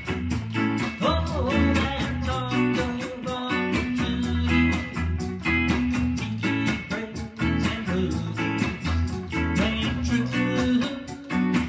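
Reggae-style music: a strummed electric guitar over a deep bass line, with an even, fast run of high ticks keeping time.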